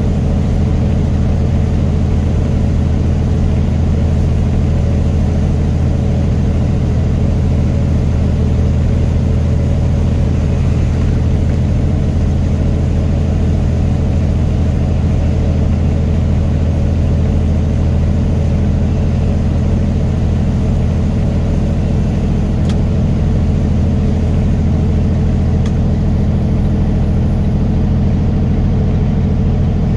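A vehicle being driven at a steady speed: a constant low engine and road drone that holds the same pitch and level throughout.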